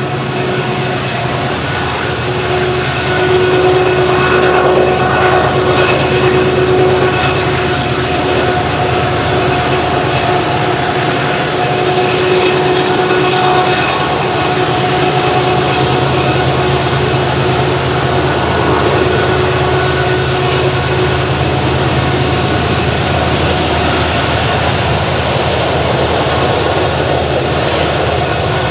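Diesel locomotives led by an EMD SD70MAC pulling a loaded 125-car coal train upgrade under heavy load. A steady, loud engine drone with a steady whine over it swells a few seconds in.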